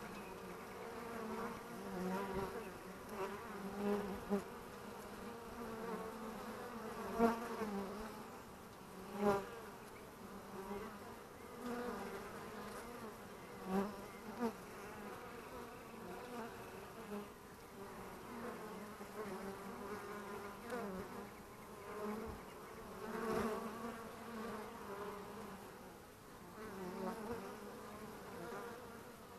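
Honeybees buzzing as they fly in and out of a hive entrance: a steady hum of many wings, with brief louder swells each time a forager flies close past, several times over.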